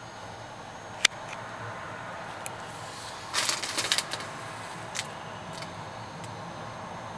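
Handling noise from a handheld camera: a sharp click about a second in, then a short burst of crackling clicks and rustles a little after three seconds, and a smaller click near five seconds, over a steady low background hum.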